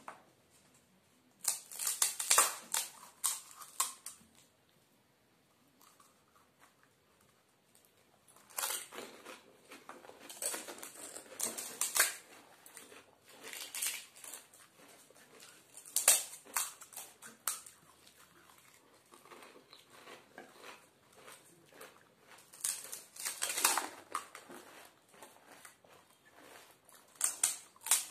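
Crisp fuchka (pani puri) shells cracking and crunching as they are broken open with fingers and bitten: bursts of sharp crackles, with a quiet stretch of a few seconds after the first burst.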